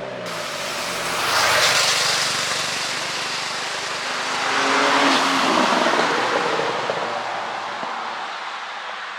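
Porsche Panamera 4 with its twin-turbo V6 driving by. A rushing noise of exhaust and tyres swells about a second and a half in and again about five seconds in, with a faint engine note under the second swell, then fades.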